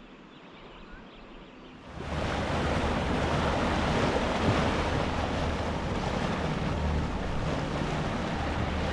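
Wind rushing over the microphone and water washing along the hull of a sailboat underway. The sound starts abruptly about two seconds in as a loud, steady rush with a low rumble beneath it.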